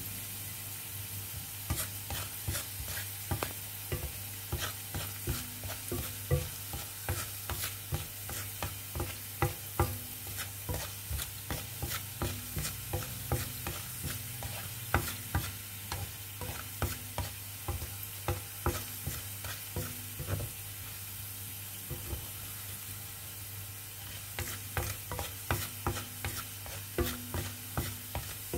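Chopped garlic sizzling in hot oil in a pan while a wooden spatula stirs it, scraping and tapping the pan in quick, irregular strokes, with a lull of a few seconds about two-thirds of the way through. This is the garlic being fried until it turns lightly brown.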